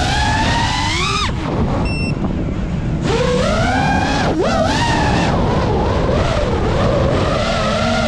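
FPV racing quadcopter's motors and propellers whining, the pitch rising and falling with the throttle. The whine climbs and cuts out about a second in, picks up again a couple of seconds later, and drops and jumps back up during a quick throttle chop near the middle.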